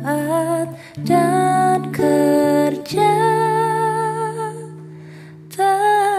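A woman singing a slow hymn in Indonesian, accompanied by fingerpicked acoustic guitar. The music thins out briefly about five seconds in before the next sung line starts.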